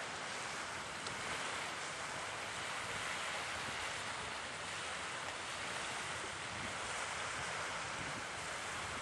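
Steady seaside ambience: a constant hiss of wind and sea washing on the shore.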